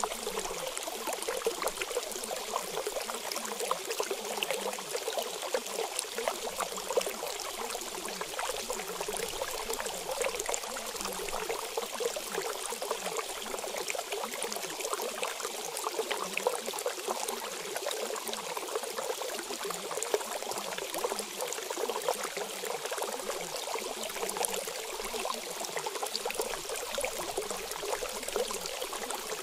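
Steady running water, a stream trickling continuously with many small splashes.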